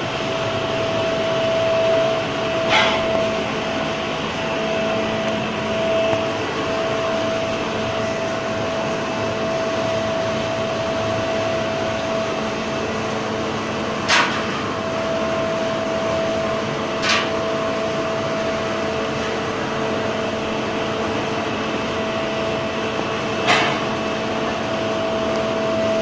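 Steady drone with a held whine, typical of the air blower feeding a cupola furnace, broken four times by short sharp clanks of metal.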